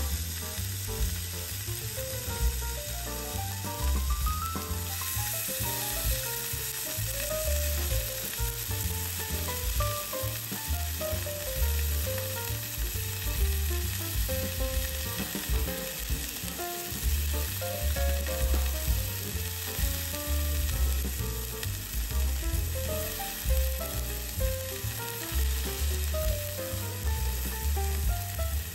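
Slices of Matsusaka beef sizzling steadily on a hot ceramic tōban-yaki grill plate, over soft melodic background music with a pulsing bass.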